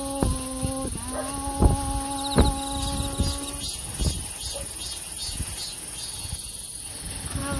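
Crickets chirping in a steady repeating pattern over a constant high insect hiss. A singing voice holds two long notes through the first half and then stops, with a few soft thumps among them.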